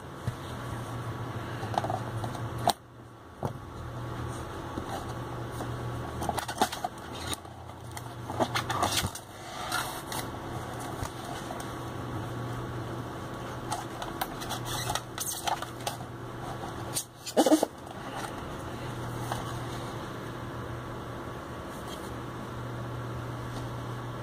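Handling noise as a car stereo head unit is turned over in the hands: scattered clicks, knocks and rubbing of its plastic and metal casing, with two sharp clicks, one about three seconds in and one a few seconds before the end. A steady low hum runs underneath.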